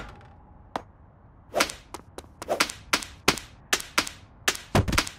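Slapstick cartoon sound effects: a rapid series of whip-like swishes and smacks, about a dozen at two to three a second, for characters tumbling and wrestling. A single faint click comes first.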